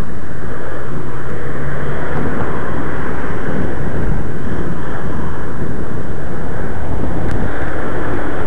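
Loud, steady wind noise buffeting the camera microphone while riding a bicycle along a street, with road traffic mixed in.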